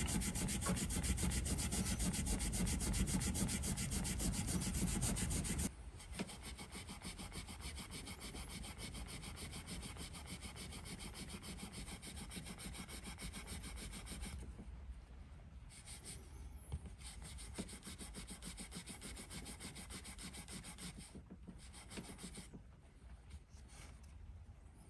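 Wire wool scrubbing back and forth over the frets of a Stratocaster neck, the last step of dressing the frets after levelling and crowning. Fast rubbing strokes, louder for the first six seconds or so, then quieter and lighter.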